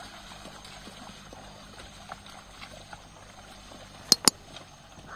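Two quick, sharp metallic dings close together near the end, over a faint steady background hiss.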